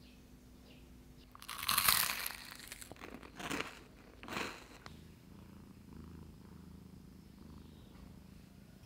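Garlic bread with a crisp crust torn apart by hand: three rustling, crackling tears, the first the loudest. From about halfway a cat purrs, low and steady.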